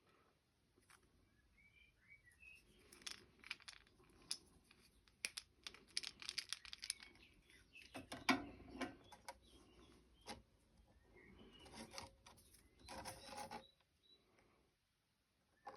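Small plastic and wood parts of a phone tripod holder being handled: scattered clicks and rattles, with a louder knock about eight seconds in and a rustle near the end. Faint bird chirps a few times in the background.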